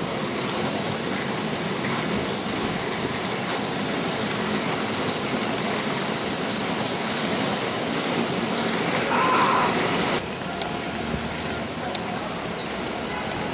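Steady hiss of rain on a wet road, with a brief higher tone about nine seconds in; the sound drops off abruptly just after ten seconds.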